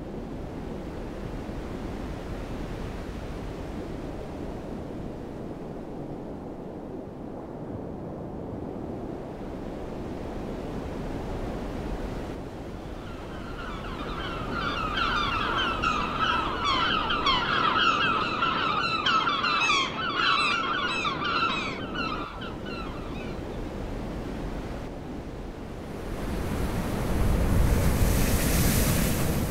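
Sea ambience of waves washing with wind. Midway, a flock of seabirds calls busily for several seconds, and near the end the waves and wind swell louder.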